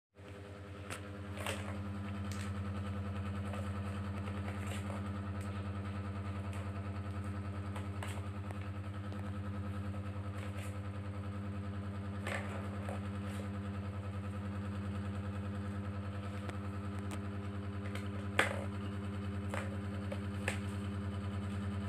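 Scattered plastic clicks and knocks from a kitten batting the balls around a plastic ball-track cat toy, one sharper knock late on. Under them a steady, low machine-like hum drones throughout.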